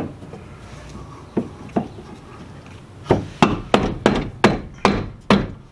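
Sharp knocks on the drive flange of a Honda CR-V rear differential as it is driven onto the pinion shaft to seat it fully: two single knocks, then a run of about seven, roughly three a second, in the second half.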